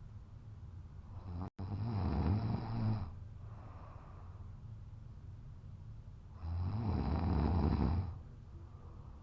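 A man passed out drunk, snoring heavily in deep sleep: two long, loud snores, one a little over a second in and one about six and a half seconds in, with quieter breathing between them.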